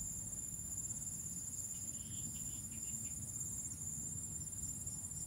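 Steady, high-pitched chorus of insects, several shrill trills layered over one another.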